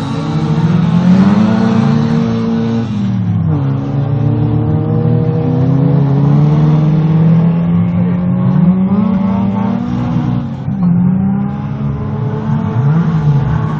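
Several stock-car engines from modified cars of up to 1800 cc, revving hard as the cars race through a dirt-track bend. The overlapping engine notes rise and fall with the throttle, easing briefly a few seconds in, then climbing again.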